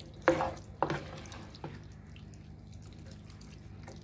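A spoon stirring thick ground-beef and tomato sauce in a pot: a few wet squelches and scrapes in the first second and a half, then quieter stirring over a steady low hum.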